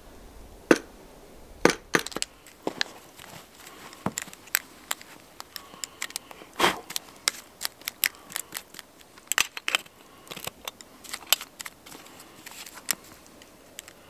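Snow being scraped off a roof and packed by hand into a small metal pot with a wire handle: irregular crunching and scraping with many sharp clicks.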